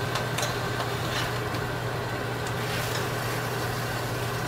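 Stove fan running on low, a steady hum, with a few light clicks of a fork turning Canadian bacon slices in a metal frying pan.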